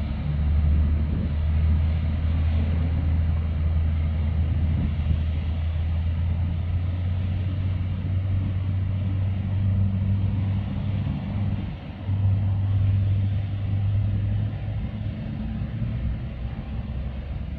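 Low, steady rumble of a large container ship's engines as the ship passes close by, dipping briefly about two-thirds of the way through.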